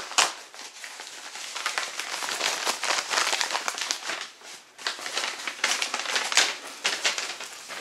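Packaging of a CD being crinkled and pulled open by hand: a dense, irregular run of crackling with several louder crackles.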